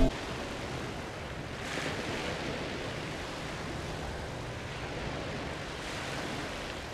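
Steady outdoor background noise: an even rushing hiss with no distinct events, swelling slightly about two seconds in.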